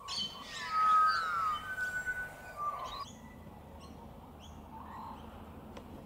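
Birds calling: warbling, sliding calls for about the first three seconds, then scattered short high chirps.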